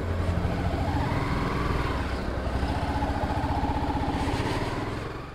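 Honda sport motorcycle's engine running at low revs as the bike moves off slowly, its pitch rising a little about a second in and then holding steady.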